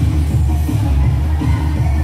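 Loud dance music with a heavy, steady bass beat, the backing track for a Zumba dance workout.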